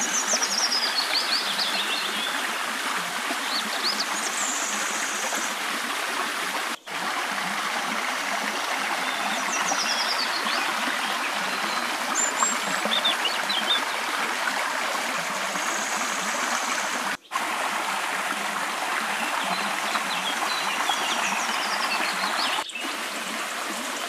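Steady rush of a small stream of water spilling from a concrete outlet into a river. A bird's short, high, falling chirps come over it several times, and the rush drops out for an instant twice.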